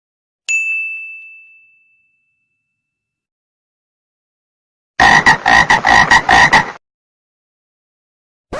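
Sound effects: a single bright ding that rings out and fades, then a few seconds later a coarse, rapidly pulsing rattle of about six pulses a second lasting nearly two seconds.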